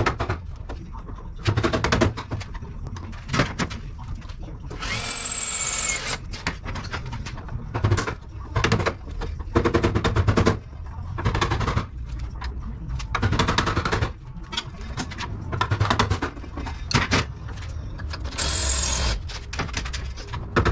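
Metalwork on a steel utility truck body. Repeated clusters of rapid metal-on-metal knocking and chattering are broken by a power tool whining steadily for about a second, twice: once about five seconds in and again near the end.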